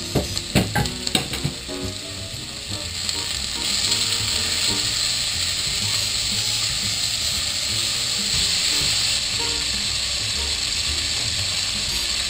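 Chopped onions frying in hot oil in an enamelled cast-iron pot, stirred with a silicone spatula. A few sharp knocks come in the first second or so, then a steady sizzle grows louder and holds.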